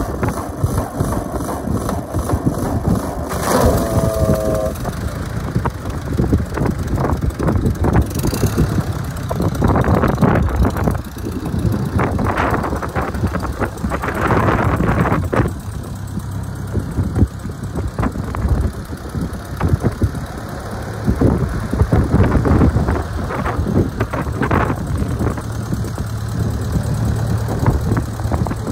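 1940 Ford 9N tractor's four-cylinder flathead engine idling steadily. A short pitched squeal is heard about four seconds in.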